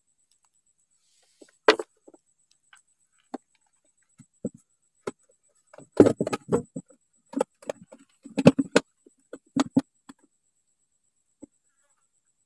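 Scattered sharp knocks and clicks from handling on the boat, clustered in quick runs about two, six and eight-and-a-half seconds in.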